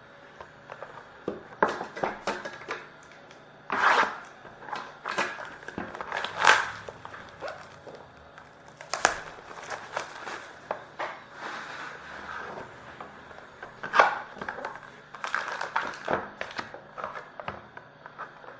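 Card box packaging being handled and opened: irregular crinkling and crackling of plastic wrap and cardboard, with sharp clicks and scrapes.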